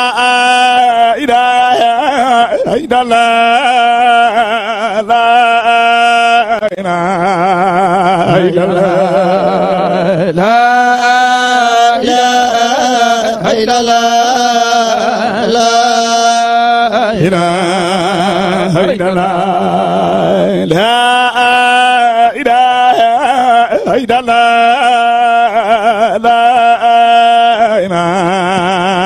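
A man's voice chanting Islamic zikr (dhikr) in long, drawn-out melismatic phrases with heavy vibrato, amplified through a microphone. A steady low drone runs beneath the voice and carries on through its pauses.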